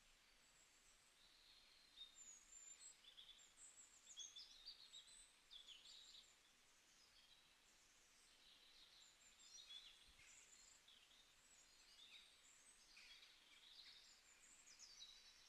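Faint birdsong: many short, high chirps and trills from several birds over a low background hiss.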